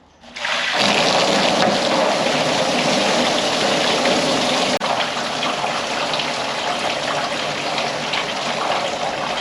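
Antifreeze coolant pouring out of a Bedford QL truck's opened cooling system as it is drained, a steady loud rush of liquid that starts suddenly just after the start and drops a little in level about halfway.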